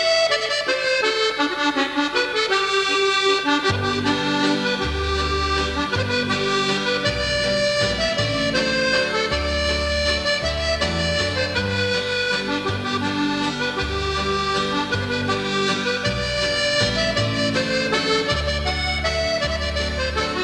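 Instrumental background music: a tune over many sustained notes, with a bass line that comes in about four seconds in.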